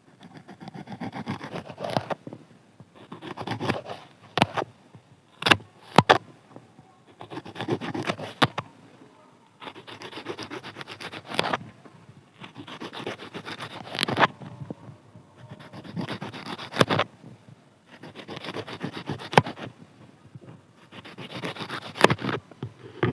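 Knife cutting through okra pods: about eight scraping, sawing cuts of a second or two each with short pauses between, and a few sharp clicks among them.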